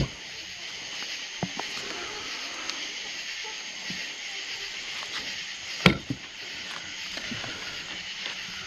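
Steady high-pitched chorus of night insects, with a few light clicks and one sharp knock about six seconds in.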